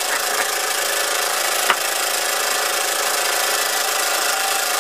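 1906 Fritz Neumeier toy steam engine running steadily under steam, an even continuous hiss and whirr, with one sharp click a little under two seconds in.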